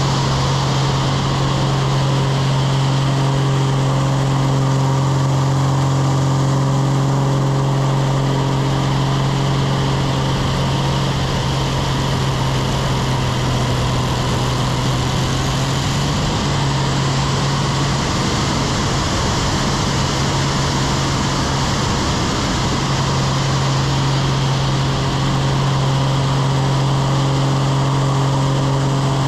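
Pitts aerobatic biplane's piston engine and propeller running steadily in aerobatic flight, with airflow rushing over a wing-mounted microphone. The engine note weakens for a few seconds past the middle of the manoeuvres, then comes back steady.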